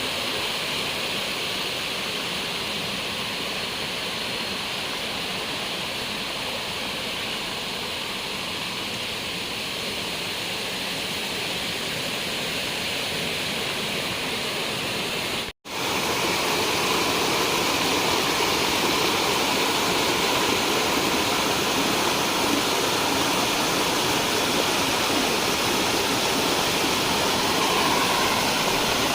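Waterfall water rushing steadily. About halfway through, the sound drops out for an instant and comes back a little louder.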